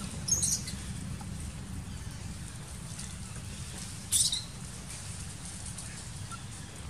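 Two short, high-pitched animal squeaks, about four seconds apart, over a steady low rumble.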